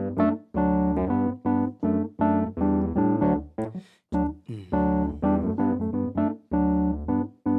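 Keyboard piano playing a song's instrumental intro in short, detached chords, about two a second, with a brief pause a little past the middle.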